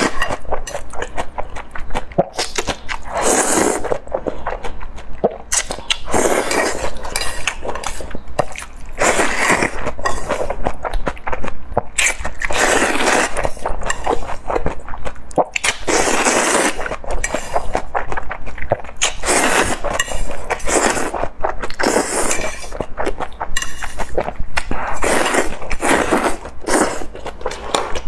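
Close-miked slurping and chewing of spicy shredded food in chili-oil sauce: about a dozen slurps of roughly a second each, with wet clicking chews between them.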